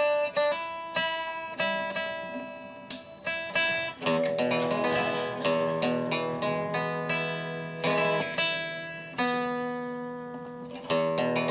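Electric guitar played as licks: single picked notes and short runs that ring and fade, with fuller chords struck about four and nine seconds in.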